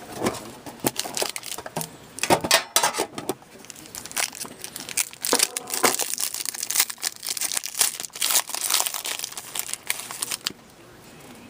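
Wrapping and packaging of a hockey card box crinkling and tearing as it is opened by hand: a dense run of irregular crackles and rustles that dies down about a second before the end.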